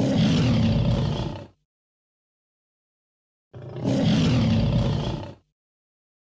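A large animal's deep, rough roaring call, heard twice, about two seconds each time, the same call repeated with dead silence between.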